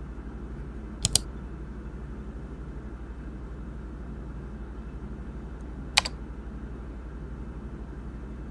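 Computer mouse clicks: a quick double click about a second in and a single click about six seconds in, over a steady low hum.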